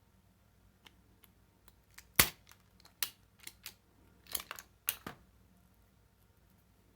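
Sharp metallic clicks and snaps of crimping pliers being worked on a cable: one loud snap about two seconds in, then several smaller clicks, including a quick cluster, over the next three seconds.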